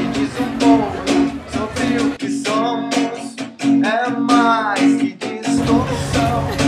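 Song with guitar and a steady beat built on a repeating note; for a few seconds in the middle the bass drops out and a voice sings over it.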